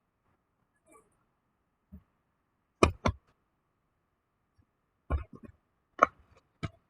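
A series of sharp clicks and knocks: two close together about three seconds in, then a quicker cluster of several from about five seconds on.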